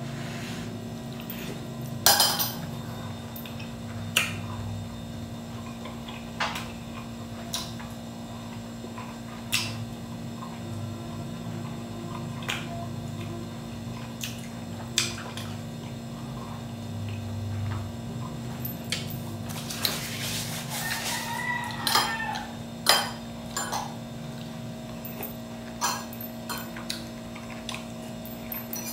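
Cutlery clinking against a plate now and then while someone eats, sharp separate clicks every second or few, over a steady low hum.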